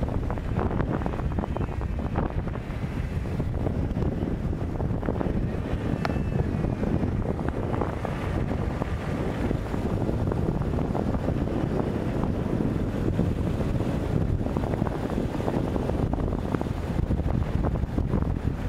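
Wind buffeting a compact camera's microphone held out of a moving car's driver's window, a steady dense rumble with the car's road noise underneath.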